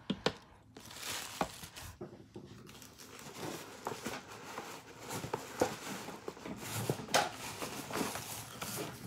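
Packing material rustling and crinkling in a cardboard box as hands dig through it, with many small crackles throughout.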